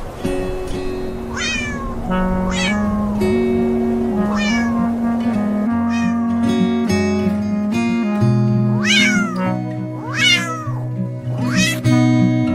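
Cat meows, each falling in pitch, repeated about every second or two (seven or so), over background music with a steady melody.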